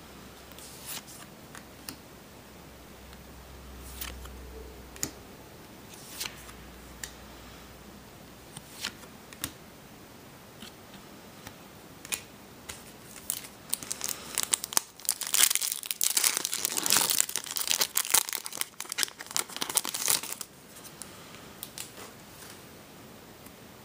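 Trading cards being handled, with scattered soft clicks and taps, then about six seconds of loud crinkling and tearing as a foil booster pack wrapper is ripped open, starting a little past halfway.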